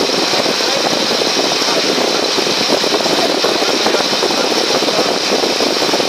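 Steady noise of a passenger ferry under way: its engine running evenly, mixed with water rushing along the hull.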